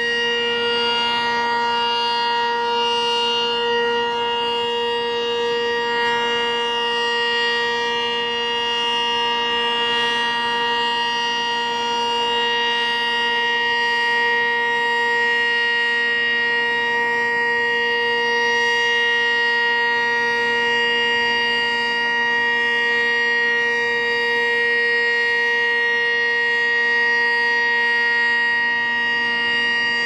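Sentry 15V2T two-tone outdoor warning siren sounding a steady, unchanging tone, its pitch holding level throughout.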